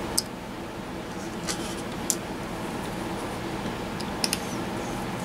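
A few faint, sharp ticks of a small screwdriver against the bottom screws of an iPhone 6 as they are worked out, over a steady low room hum.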